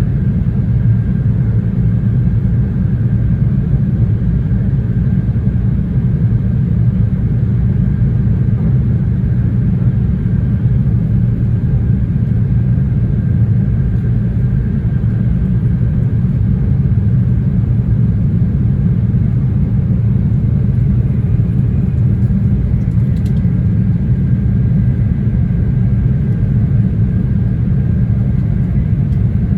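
Cabin running noise of an E2 series Shinkansen train at speed: a steady low rumble from the wheels, rails and running gear, with a faint steady high tone above it.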